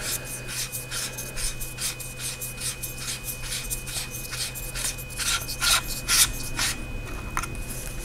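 A large Imalent DX80 flashlight being unscrewed by hand: its threaded body turns apart in a run of short rubbing, rasping strokes as the hands twist and regrip.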